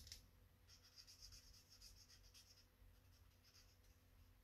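Faint scratchy strokes of a brush-tip marker colouring on stamped cardstock, over a low steady hum.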